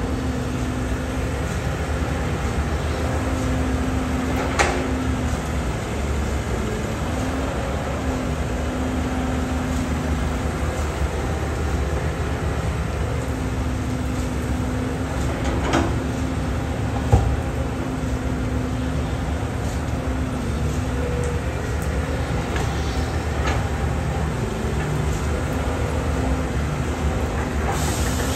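Caterpillar 320D hydraulic excavator running while it loads soil into a dump truck: a steady diesel engine note that rises and falls as the hydraulics work. A few sharp knocks stand out, three in all, as spoil lands in the truck's steel bed.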